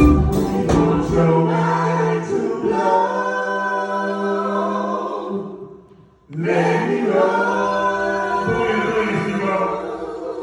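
A group of voices singing long held chords, a cappella, after the band music drops out about a second in. The singing breaks off briefly near six seconds, then comes back and fades out.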